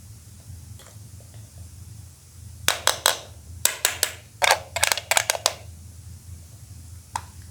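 Plastic Poké Ball toy clicking and snapping, a dozen or so sharp clicks in quick clusters through the middle, then one more near the end, over a steady low hum.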